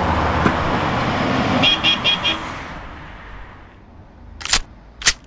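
Car driving off, its engine and road noise fading away over a few seconds, with four quick horn toots about two seconds in. Two sharp knocks follow near the end.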